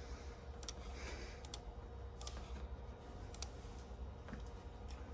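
Several faint, irregularly spaced light clicks, some in quick pairs, over a steady low electrical hum with a faint held tone.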